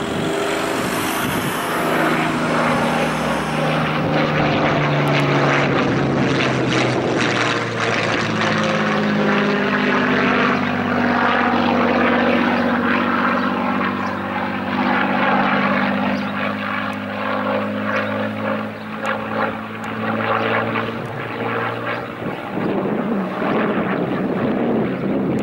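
Hawker Hurricane's Rolls-Royce Merlin V12 piston engine and propeller running at display power as the fighter flies past overhead. The engine note falls in pitch over the first few seconds, then holds steady and shifts gently as the aircraft banks.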